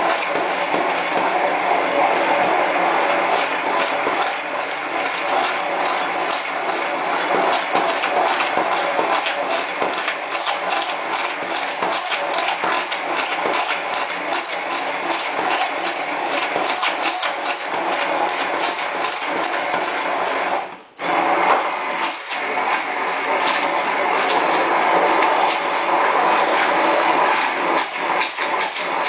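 Immersion blender running in a glass measuring cup, emulsifying soy milk and a slow stream of oil into eggless mayonnaise. The motor runs steadily, cuts out for a moment about two-thirds of the way through, then starts again.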